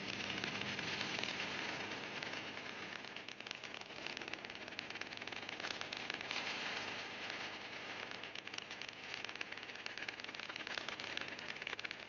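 Dense, steady crackling noise made of many fine clicks, with no clear calls or tones.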